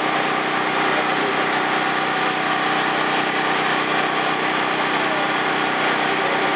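Steady hum of a small engine running at an even idle, typical of a portable generator powering a food trailer.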